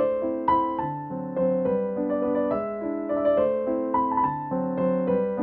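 Background piano music: a melody of struck notes over chords.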